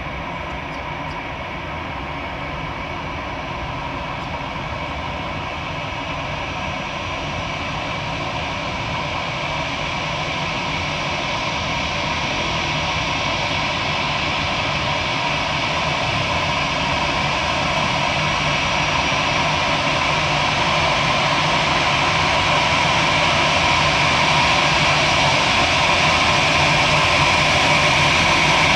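Airbus A319 jet engines running: a broad rush with a steady whine on top, growing gradually louder throughout.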